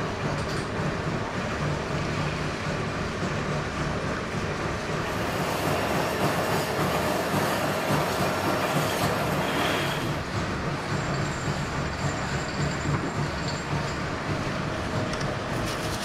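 Gear-driven rotating drum machine running steadily in a liquid tank: turning wheels and spur gears give a continuous mechanical clatter with a hiss of churning liquid.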